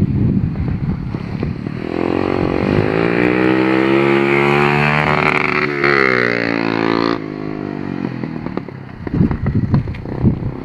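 Motorcycle engine with a newly installed DG aftermarket muffler, idling unevenly and then revved and held for about five seconds, its pitch rising and then falling, before dropping back to a lumpy idle with a few sharp pops. The exhaust is really loud.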